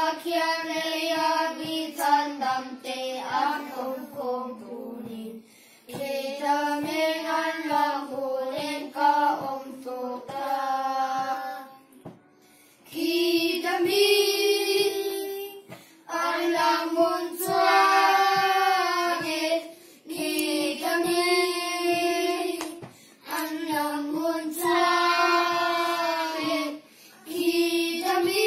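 A small group of children singing a hymn together without accompaniment, line by line, with short breaks for breath between phrases.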